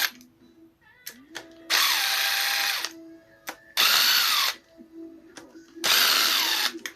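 A power tool, taken to be an impact gun, runs in three bursts of about a second each as it spins out engine crankcase bolts. Light clicks and knocks fall between the bursts.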